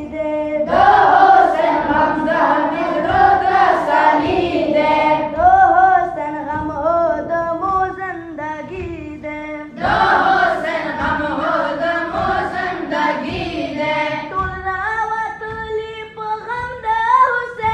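Schoolboys chanting a Pashto noha (a Muharram lament for Hussain) without instruments, a single boy's voice leading and the whole group joining in unison about a second in and again about ten seconds in, then the lone voice carrying on near the end.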